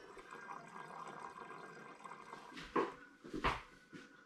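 Wine running through a siphon tube into a glass demijohn, a soft steady trickle, with two brief louder sounds about three seconds in.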